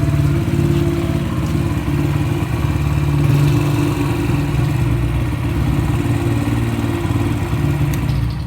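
Yamaha YBR125's single-cylinder four-stroke running steadily at low speed through an aftermarket Ape 100 exhaust with its silencer insert fitted, a loud exhaust note echoing in a small tunnel.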